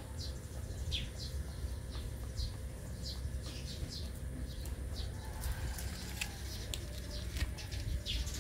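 Puppies squeaking: short, high-pitched, falling squeaks, about one or two a second, over a low steady rumble.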